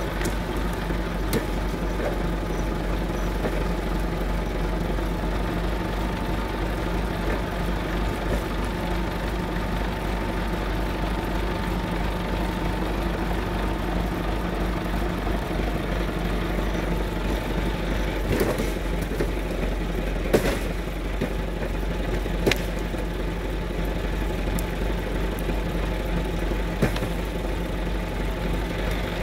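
Massey Ferguson 3070 tractor engine running steadily at a constant speed. A few short sharp cracks come over it about two thirds of the way through.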